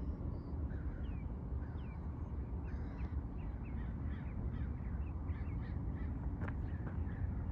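Birds calling with many short chirps, over a steady low rumble.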